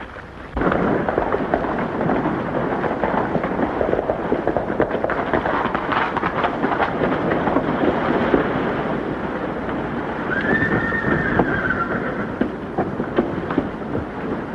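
Horses galloping, a dense rapid clatter of hoofbeats starting about half a second in, with one horse whinnying briefly about ten seconds in.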